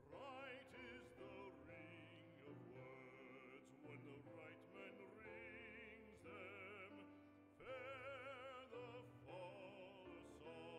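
Quiet background music: an operatic voice singing sustained notes with wide vibrato over instrumental accompaniment.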